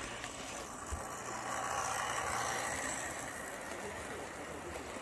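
Model train running along its track past the camera, a steady mechanical running noise.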